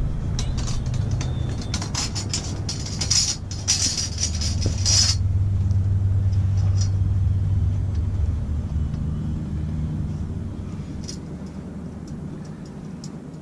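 Steel bandsaw blade rattling and scraping for about five seconds as it is twisted and folded into a triple coil, stopping suddenly, then a few single light metallic clicks as the coil is handled and tied. A steady low rumble underneath.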